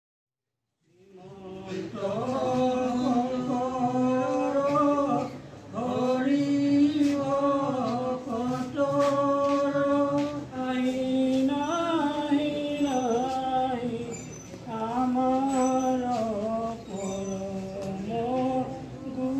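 A group singing a slow devotional chant in unison, in long held notes that slide between pitches, with short breaks between phrases every few seconds. It begins about a second in.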